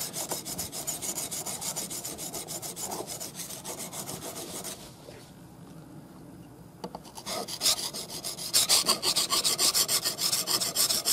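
Steel chisel being rubbed back and forth on a flat whetstone by hand, a fast, even run of scraping strokes. The strokes stop for about two seconds around the middle, then start again and grow louder near the end.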